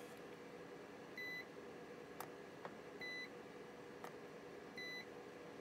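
Handheld battery spot welder beeping three times, each beep short and about two seconds apart, as it welds nickel strip onto sub-C Ni-Cd cells, with a few sharp clicks in between.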